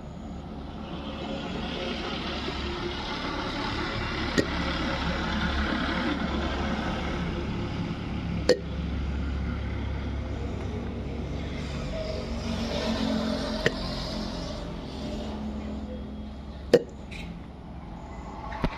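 A girl hiccuping: five short, sharp hiccups a few seconds apart, coming closer together near the end, over a steady background hum.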